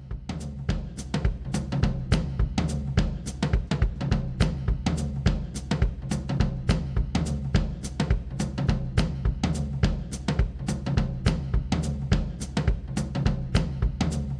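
Background music with a steady drum-kit beat: kick and snare hits several times a second over a low bass line.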